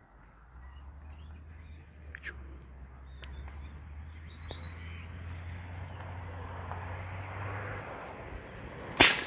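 Birds chirping a few times over a steady low hum that stops about eight seconds in, then a single loud, sharp bang near the end.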